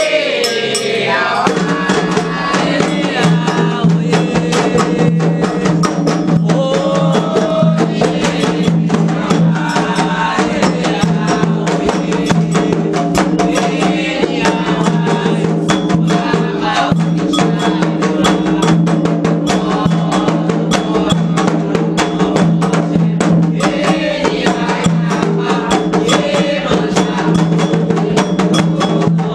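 Candomblé ritual music: hand drums and sharp struck percussion keeping a fast, steady beat, with voices singing over them.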